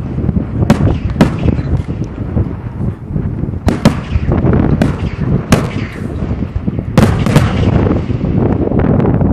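Fireworks display: aerial shells bursting in a rapid, irregular series of sharp bangs, a dozen or so in about nine seconds, each with a short echoing tail, over a continuous low rumble of launches and distant bursts.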